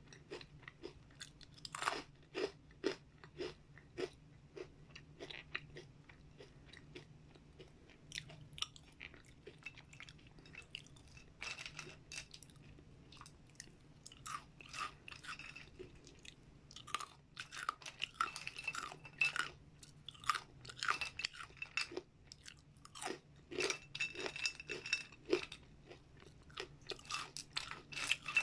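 A person chewing crunchy dried vegetable and fruit chips: irregular crisp crunches and chewing, coming in clusters with short pauses between bites.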